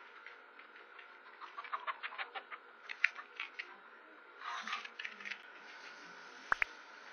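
A Maltese puppy moving about right next to a home pet camera: a run of light clicks and taps, a brief rustle about four and a half seconds in as its fur brushes the camera, and a short sharp rising chirp near the end.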